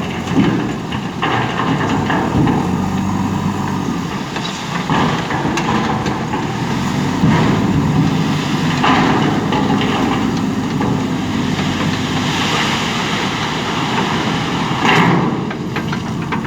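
JCB 3DX backhoe loader's diesel engine running steadily, with occasional clanks as the machine works.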